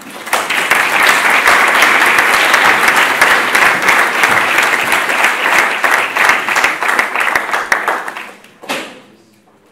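Audience applauding: dense clapping that starts right away and dies down about eight seconds in.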